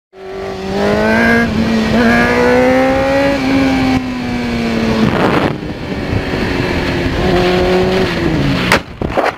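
Sport motorcycle engine heard from the rider's helmet, pulling hard with its pitch rising and dropping at each gear change, then falling near the end as the bike slows, over steady wind rush. A sharp knock comes just before the end.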